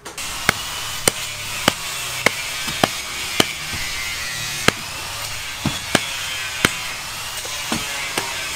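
A hoe chopping into and dragging a heap of cement mortar mix on the ground. The sharp strikes come about every half second at first, then more irregularly, over a steady hiss of background noise.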